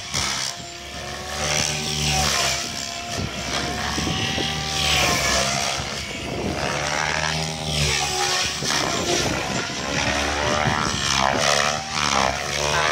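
Goblin 700 radio-controlled helicopter in flight: its rotor blades whirring, the pitch rising and falling as it manoeuvres, with a fast fluttering chop of the blades about ten seconds in.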